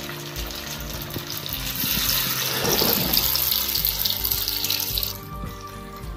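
Batter-coated paneer pieces deep-frying in hot oil, sizzling. The sizzle swells about two seconds in as fresh pieces go into the oil and eases off about a second before the end. Background music plays under it.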